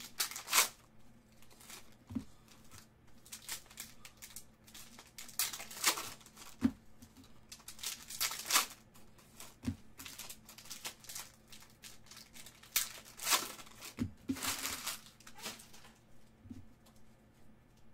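Foil trading-card pack wrappers (Panini Certified basketball packs) being torn open and crinkled by hand in several bursts, with a few soft thumps between them.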